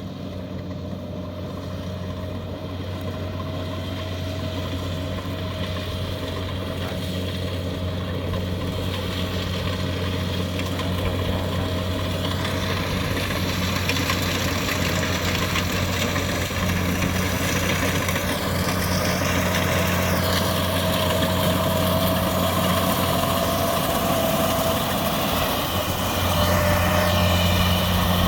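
Kubota DC70 combine harvester's diesel engine running steadily at work, a deep hum with a faint whine above it, growing steadily louder as the machine comes closer.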